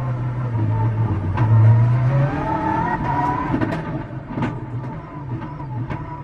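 In-car sound of a Mitsubishi Lancer Evolution rally car's turbocharged four-cylinder engine under hard driving, the revs rising and falling through the gears. A few sharp clicks or pops come through on top of the engine.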